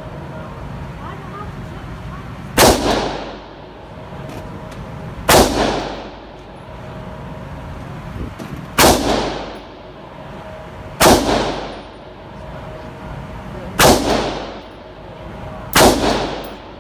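Six gunshots fired one at a time, about two to three seconds apart, each with a short echoing tail.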